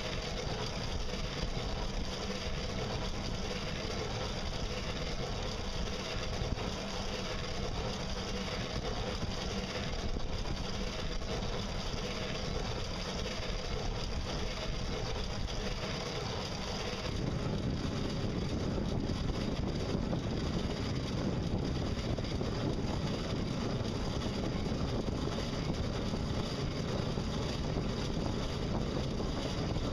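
Solar-electric and pedal-powered boat under way: a steady running hum with a faint high whine over water and drivetrain noise. About halfway through, the low rumble grows louder and fuller.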